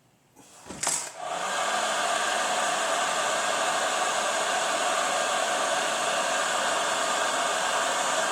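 Heat gun switched on with a click about a second in, then running steadily, blowing hot air to shrink heat-shrink tubing over the cable.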